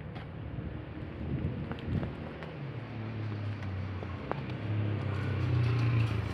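Low, steady rumble of a motor vehicle's engine, growing stronger about halfway through, with a few faint clicks.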